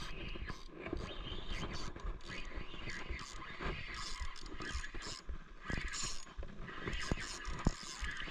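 Spinning reel being cranked, its gears and rotor clicking and scraping as the line is wound in, with a few sharper clicks in the second half.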